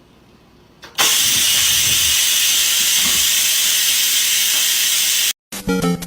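A loud, steady hiss that starts about a second in and cuts off suddenly near the end.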